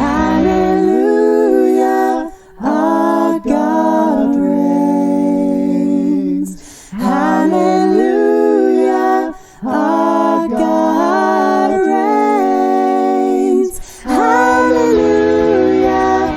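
Voices singing unaccompanied in harmony: long held notes in phrases of a few seconds, each separated by a short breath-like break.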